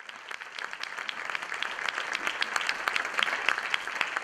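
Audience applauding: many hands clapping, building up over the first couple of seconds.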